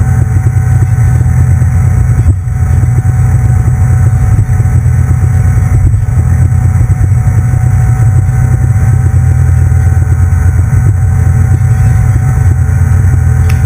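Cabin cruiser's engine running steadily under way, a loud low drone with a faint steady whine above it, heard from inside the canvas-enclosed cockpit.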